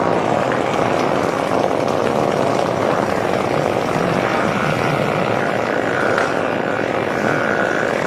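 A long fart sound effect: a continuous, rapidly fluttering noise that runs without a break at a steady level.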